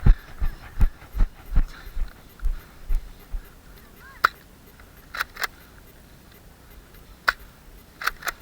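Footsteps of someone running while carrying the camera: low thumps, about two or three a second, that stop about three seconds in. After that come a few scattered sharp clicks.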